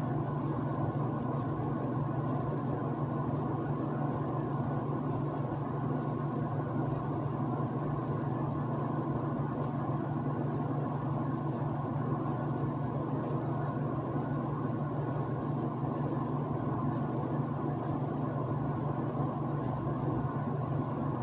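Steady, unchanging mechanical hum with a strong low drone and a fainter higher whine.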